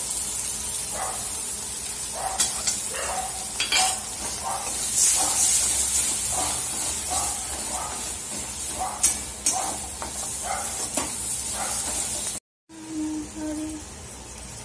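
Beaten eggs sizzling in hot oil in a pan of fried onions as they are cooked into egg bhurji, with a spatula stirring and scraping in repeated strokes and clinking now and then against the pan. The sizzle cuts off suddenly near the end.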